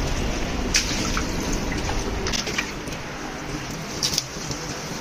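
Water spraying from a hose onto a woven rug, a steady splashing spray with a few brief sharp splashes or knocks.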